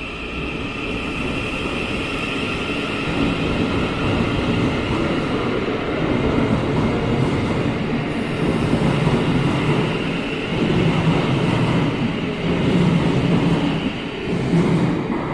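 Class 700 electric multiple unit pulling out of an enclosed underground platform and gathering speed past the listener: a dense rumble of wheels on rail that grows louder, with a steady high whine that fades over the first several seconds.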